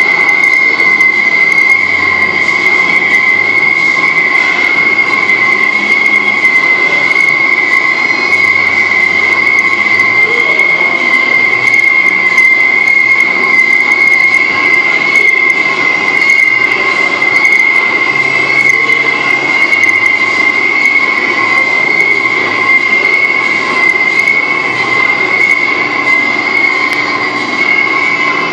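Romi Centur 30D CNC lathe machining a metal nozzle: a loud, steady high-pitched squeal over a hiss of cutting noise.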